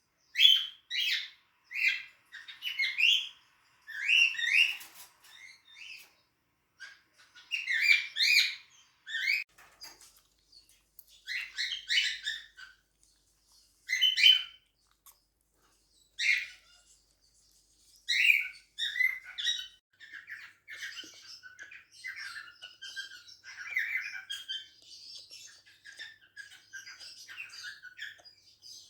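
Cockatiels chirping and calling in short, sharp bursts, then settling into softer, near-continuous chatter in the second half.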